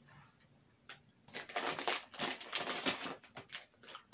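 Plastic candy bag crinkling and crackling in a burst of about two seconds as it is handled to pick out a gummy.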